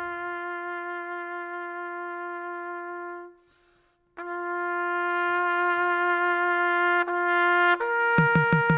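Music: a trumpet holds a long, steady note, stops for under a second, then holds it again. Near the end it steps up to a higher note and drum hits come in.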